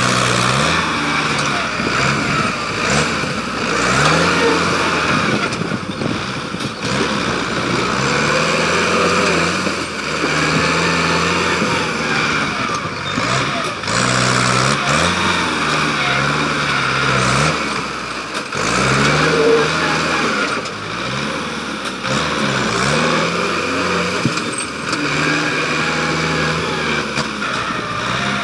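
Belarus 510 tractor's diesel engine working a front loader, revving up and falling back again and again as the bucket digs in and lifts soil.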